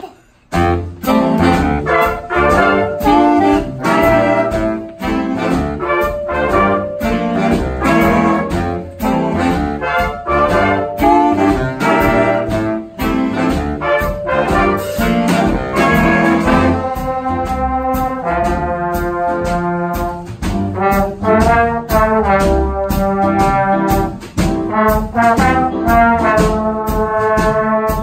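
Student jazz big band playing: saxophone, trumpet and trombone sections over double bass and drum kit. The band comes in together right at the start, and from about halfway through the horns play long held chords.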